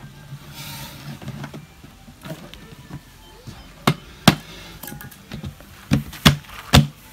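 Plastic bucket lid being pressed and knocked shut: a handful of sharp knocks in the second half, each with a dull low thump.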